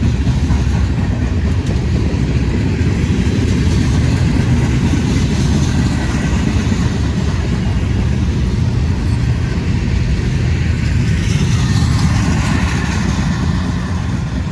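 Freight train rolling past: a steady, loud low rumble, with no horn sounding.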